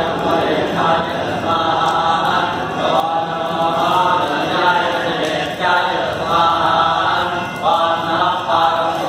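Hindu priests chanting Vedic mantras in a steady, recitative sing-song, with short pauses for breath between phrases.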